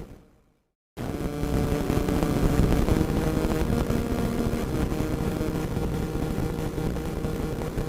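Radio static: a dense hiss and crackle with faint steady tones in it. It fades out at the start, drops to silence, then cuts back in suddenly about a second in and carries on steadily.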